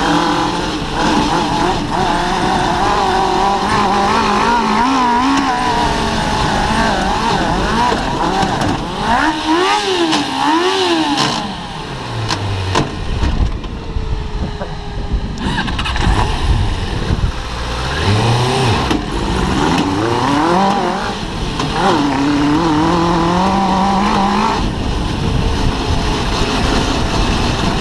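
Suzuki GSX-R 600 inline-four motorcycle engine powering an off-road buggy driven across grass, its revs rising and falling repeatedly. Around the middle the revs drop low, then climb again.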